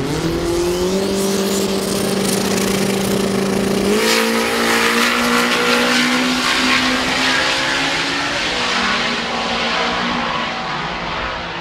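Two rear-wheel-drive drag cars launching from the line and accelerating hard down the strip. The engines jump sharply in pitch at the launch, with some tire squeal. They change note about four seconds in, then fade as the cars pull away.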